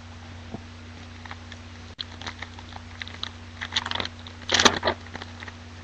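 Foil trading-card pack wrapper crinkling and tearing as it is ripped open: scattered crackles building to a louder tear about three quarters of the way in, over a steady low electrical hum.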